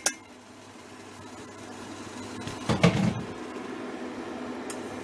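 Steady low hum and hiss of a steam juicer heating on the stove, slowly growing louder, with a short louder knock or clatter about three seconds in.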